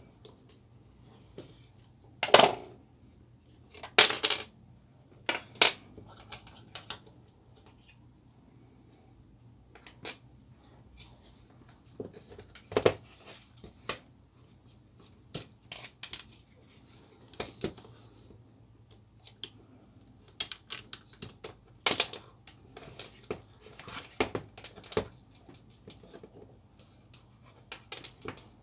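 Plastic and metal parts of a laser printer fuser unit clicking and knocking as they are taken apart and handled, with the loudest knocks about two and four seconds in.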